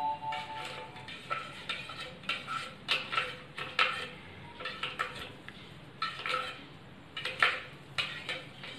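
Steel spoon stirring milk in a stainless steel tumbler, scraping and clinking against the sides in a steady run of strokes, a little over two a second. The soaked almond gum is being mixed into the sweetened milk.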